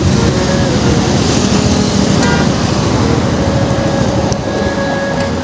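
Road traffic heard from a motorcycle: a steady rumble of engines and tyres, with a horn-like tone sounding briefly about half a second in and again for a couple of seconds past the middle.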